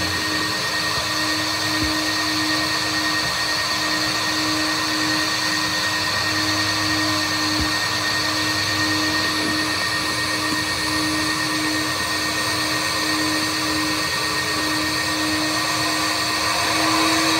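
Automatic tunnel car wash machinery running steadily: a constant rushing noise with a low hum and a faint high whine, heard from inside the car.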